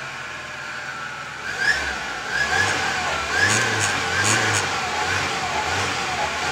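Volvo 242 Turbo's turbocharged four-cylinder engine running with a steady whine, then revved in short repeated blips from about a second and a half in, a wavering noise rising and falling with each blip. The owner cannot trace the noise and has ruled out the turbo, which has no shaft play.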